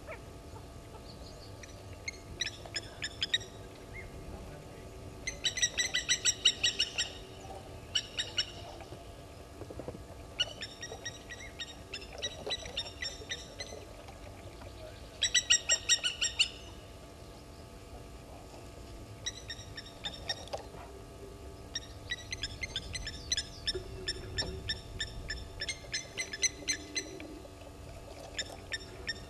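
Blacksmith lapwings calling: bouts of rapid, sharp clicking notes, several a second, each bout lasting one to a few seconds, recurring throughout, loudest a few seconds in and again about halfway.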